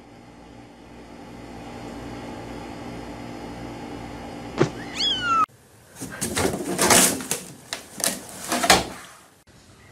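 A short high kitten mew that slides down in pitch, about five seconds in, over a steady faint hum. Then a cat scrabbling and rustling inside a hamper, in several scratchy bursts.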